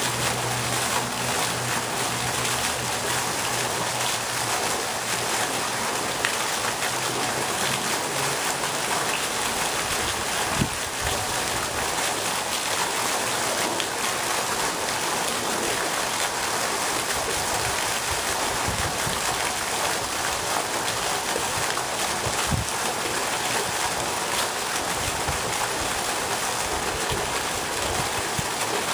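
Pond fountain jet splashing steadily, its spray falling back onto the water in an even, rain-like rush. A low hum underneath stops about eight seconds in.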